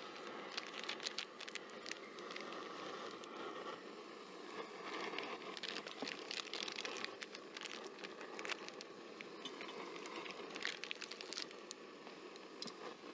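Plastic drink sachets crinkling and rustling as they are handled and opened, with scattered small clicks.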